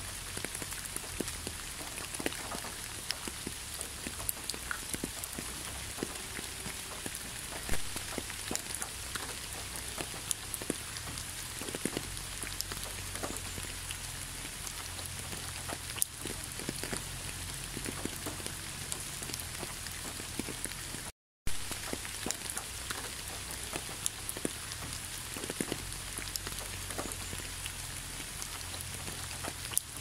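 Steady rain falling on a wet, leaf-strewn asphalt road: an even hiss with many separate drops ticking close by. The sound cuts out completely for a split second about two-thirds of the way through.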